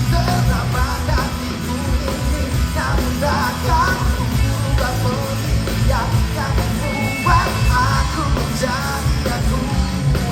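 Rock band playing live and loud, with a voice heard over the band.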